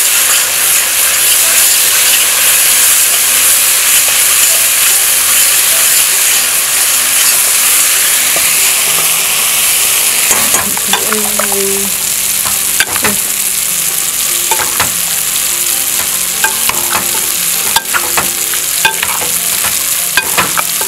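Curry paste frying and sizzling in a stainless-steel pot while a metal spoon stirs and scrapes it, as it cooks down until the oil separates and the curry turns grainy. The sizzle eases about halfway through, and the spoon's scrapes and knocks against the pot then come through more.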